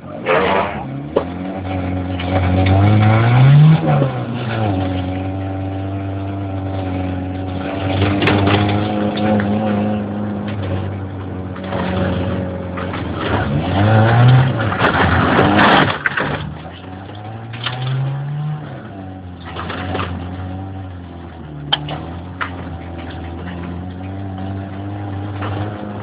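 A motor vehicle's engine running, revving up and dropping back three times, with a few sharp knocks over it.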